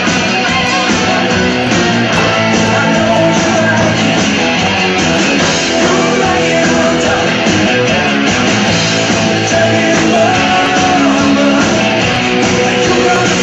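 Country music with guitar, playing without a break.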